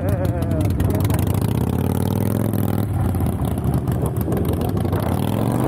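Motorcycle engine pulling hard under acceleration: its pitch rises, then drops abruptly about three seconds in as it shifts up a gear, and it starts climbing again near the end.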